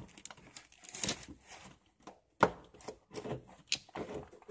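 Handling noises while working under a car's frame: scattered rustling and light knocks, with one sharp knock about two and a half seconds in.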